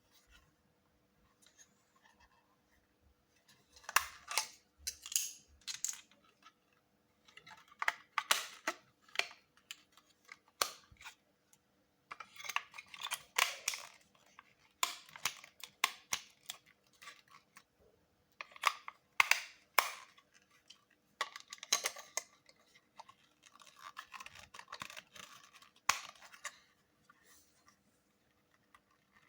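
Handling noise: irregular bursts of rustling, scratching and clicking, in clumps a second or two long with short pauses between.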